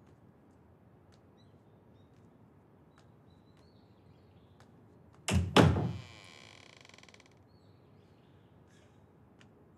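A door shutting about five seconds in: two quick heavy thuds a fraction of a second apart, with a short ringing after. Otherwise faint room tone.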